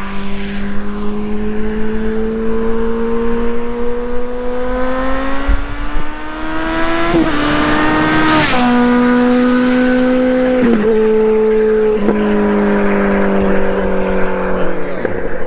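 Kawasaki ZX-14R's inline-four engine, on a shorty aftermarket exhaust, pulling hard in second gear as it comes closer, its note rising steadily. It passes close by about eight seconds in with a sudden drop in pitch, then fades away on a lower, falling note as the throttle eases, with exhaust pops.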